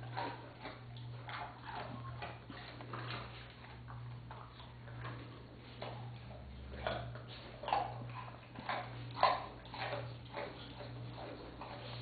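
Doberman Pinscher crunching and chewing pieces of raw carrot, an irregular run of crisp crunches and clicks, with a few louder crunches from about seven seconds in.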